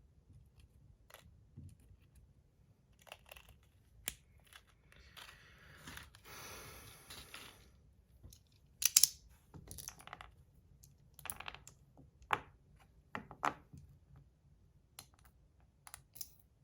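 Light clicks and taps of small metal balls and the parts of a three-piece PEI slider fidget being handled while the balls are loaded in. There is a rustling, rattling stretch a few seconds in, and sharper single clicks through the second half, the loudest about nine seconds in.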